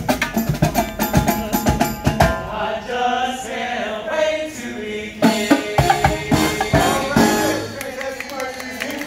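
Live brass marching band music: a fast, steady drumbeat with brass, then a group of men's voices singing in harmony over the band from about two seconds in.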